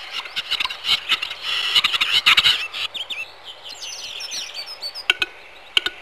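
Woodland birds: a quick run of clicks and chirps over the first few seconds, then high whistled song phrases.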